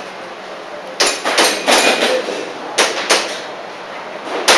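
Airsoft pistol shots fired in short quick strings: a cluster of sharp cracks about a second in, two more a little before and after three seconds, and another near the end.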